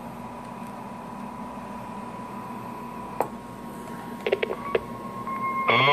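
Bench radio test setup: a low steady hum with a thin, steady test tone, a click about three seconds in and a few button clicks around four and a half seconds as the analyzer is switched over. Near the end a much louder steady tone with many overtones starts up.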